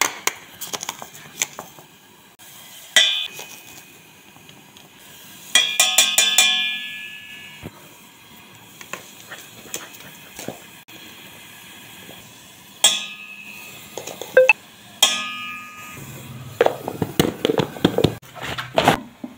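A metal spoon clinking against a cooking pot and a tea container as loose-leaf tea is scooped in: single sharp clinks that ring briefly, a quick run of them about six seconds in, then a denser clatter of knocks near the end as the container's lid is handled.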